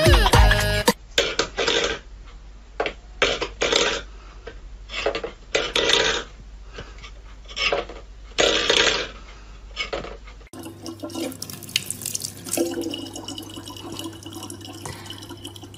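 A tune cuts off within the first second. Then come irregular short bursts of scraping and clattering from a metal bowl pushed about on a wooden floor by a cat. In the last few seconds this gives way to a faint trickle of tap water running in a thin stream into a plastic bottle.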